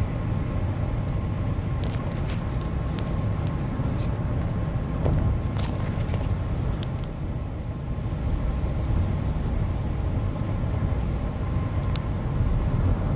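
Steady low road and engine rumble inside the cabin of a full-size GM truck cruising at about 60 mph, its V8 turning about 1,600 rpm in V4 cylinder-deactivation mode, with a faint steady whine and a few light clicks.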